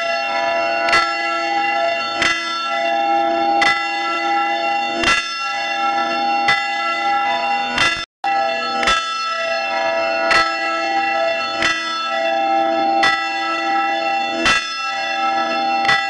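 A church bell ringing, struck about once every second and a half, each stroke ringing on into the next. A brief dead stop about halfway breaks the ringing before the strokes carry on.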